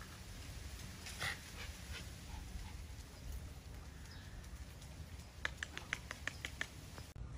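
A dog gives one short bark about a second in. Near the end comes a quick run of light clicks, about five a second, from a dog's nails on concrete as it walks.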